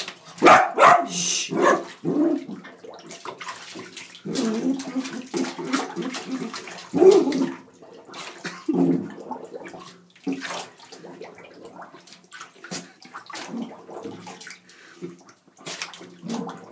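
Dachshund in a bathtub digging at the drain plug: water sloshing and claws scrabbling and knocking on the tub, with a few short dog vocal sounds about four, seven and nine seconds in.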